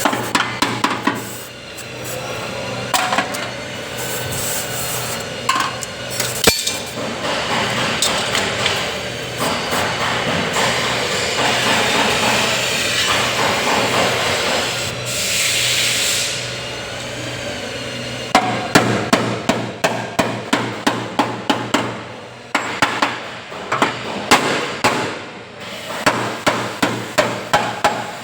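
Steady rasping and rubbing on metal, then a hammer striking car body sheet metal in a fast run of blows, about three a second, during chassis repair work.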